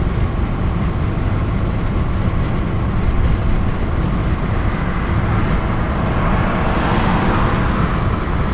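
Car interior road noise while driving: steady engine and tyre rumble, with a swell of higher hiss about seven seconds in.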